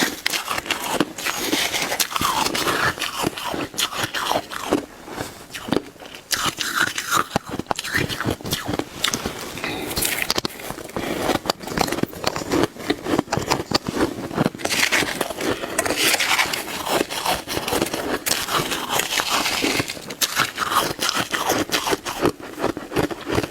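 Close-miked crunching and chewing of shaved ice: a dense, continuous run of crackling crunches and scrapes from big, fast bites, easing briefly about five seconds in.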